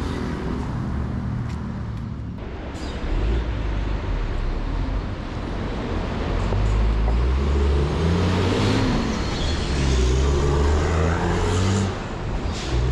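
City road traffic with a motor vehicle's engine running close by, growing louder and climbing in pitch in steps through the second half as it accelerates.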